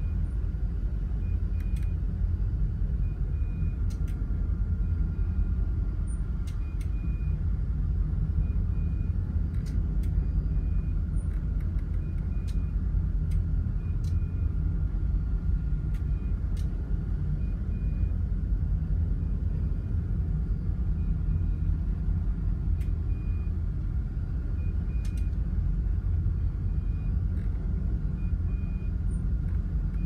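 Steady low rumble aboard a container ship under way in a rough sea, with a faint steady hum above it and scattered faint ticks.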